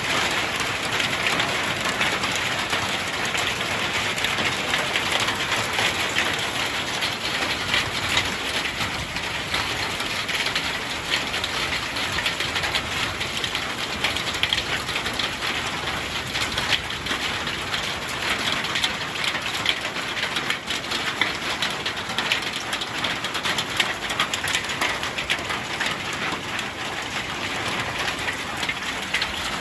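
Hail falling with rain, a dense, steady patter of many small hits.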